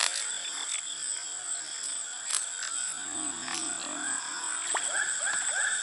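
Insects shrilling steadily on a high note, with a few sharp clicks and small splashes as a hooked climbing perch thrashes at the water's surface; a rapid chirping joins near the end.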